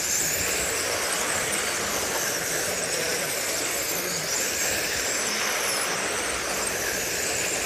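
Electric dirt modified RC cars racing: a steady high whine from their 17.5-turn brushless motors and gears, mixed with a hiss.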